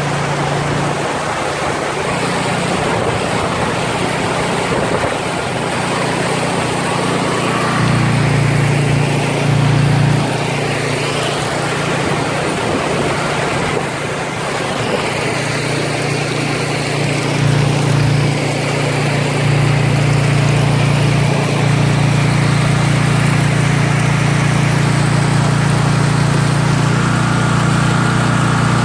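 Heavy rain pouring down in a storm: a loud, steady hiss, with a low rumble that comes and goes and holds steady from about a third of the way in.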